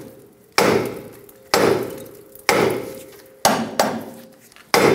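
A hammer strikes the upper control arm of a Toyota 4Runner's front suspension six times, roughly once a second with two blows close together past the middle. Each blow is a sharp metallic hit that rings briefly. The blows are knocking the upper ball joint's stud loose from the control arm.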